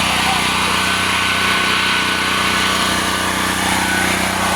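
Generac GP6500 portable generator's single-cylinder engine running steadily at its governed speed, a loud, even hum.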